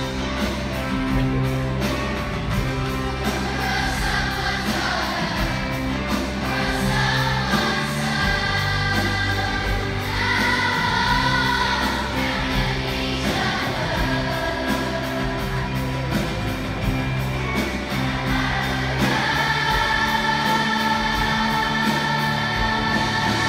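Mass children's choir singing with an amplified backing band that carries a steady beat and bass line.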